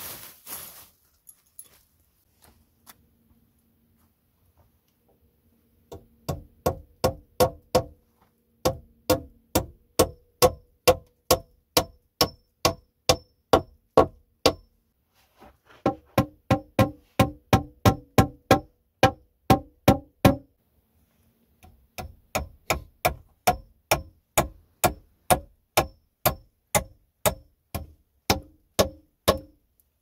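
A plastic bag rustles briefly at first. Then come steady runs of sharp hammer-like blows, about two to three a second, each with a short ringing note, in three runs with short pauses between them.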